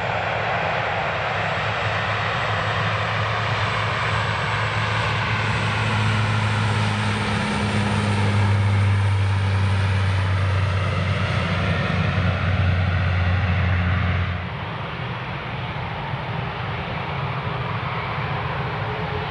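Bombardier Dash 8 Q400 turboprop at takeoff power: a loud, steady low drone from its six-bladed propellers that grows louder as it passes. About 14 seconds in it cuts off suddenly to a quieter jet-engine noise from an Airbus A380 on the runway, with a faint rising whine near the end.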